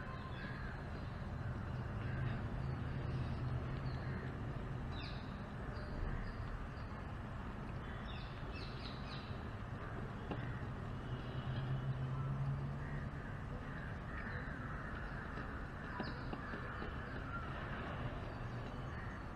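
Birds calling a few times, short calls about 5 s, 8–9 s and 16 s in, over a steady low outdoor hum.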